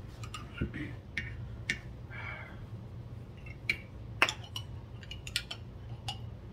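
A spoon and baby food containers being handled: scattered light clicks and taps throughout, with a few faint murmured words.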